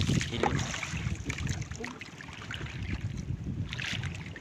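Wind buffeting the microphone over water rushing along the hull of a moving outrigger boat, in uneven gusts.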